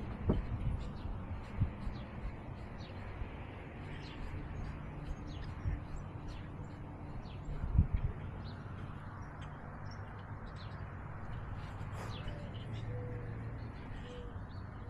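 Birds chirping, with a dove cooing a few times near the end, over a steady low rumble and bumps from a collar-mounted camera moving with the cat; the loudest bump comes about eight seconds in.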